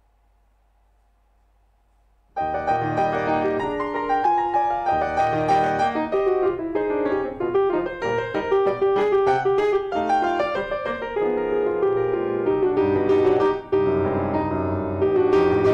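Kawai grand piano played solo, classical style: after about two seconds of quiet the piano comes in and plays a lively passage of quick notes and chords.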